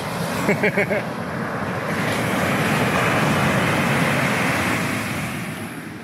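Heavy shore-break wave crashing on the beach: a rush of surf that swells, peaks about halfway through and fades away. A few short pitched notes sound near the start.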